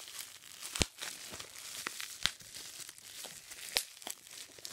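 Plastic bubble-wrap bag crinkling and rustling as it is handled, with irregular sharp crackles, the loudest about a second in.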